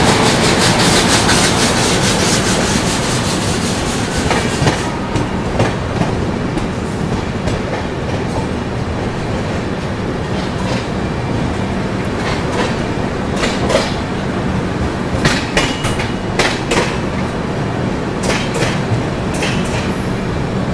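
Passenger train coaches rolling slowly through a station: a steady rumble of wheels on rail with irregular sharp clacks over rail joints and points. A louder hissing rush fades out about four seconds in.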